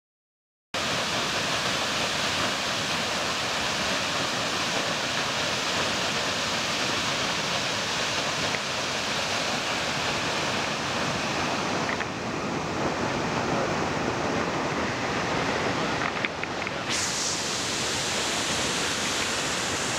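Steady rush of water pouring down a stepped stone dam spillway, starting abruptly just under a second in.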